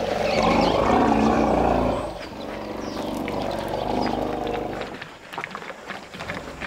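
African elephants calling: a loud, deep rumbling roar for about two seconds, then a softer rumble until about five seconds in. These are greeting calls between herd members.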